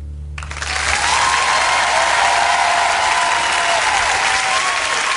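Audience applause and cheering breaking out about half a second in at the end of a live rock song, over a low hum that stops about a second in.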